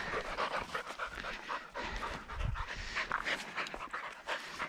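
Pointing dog panting close by, quick short breaths in a steady rhythm.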